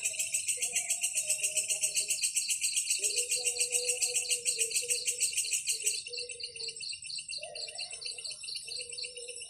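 Insect chirring: a fast, even, high-pitched pulsing that stops abruptly about six seconds in, after which a fainter pulsing goes on, over soft held low tones.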